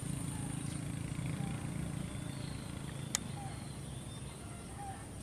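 A steady low engine hum, slowly fading, with faint short bird chirps over it and one sharp click about three seconds in.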